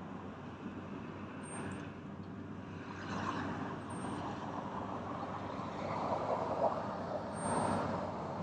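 Road traffic: a steady hiss of passing cars' tyres that swells several times, loudest near the end, as vehicles go by.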